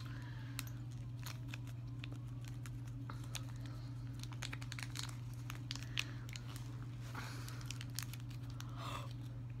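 Toy packaging being torn open and crinkled by hand, a string of scattered crackles and rustles over a steady low hum.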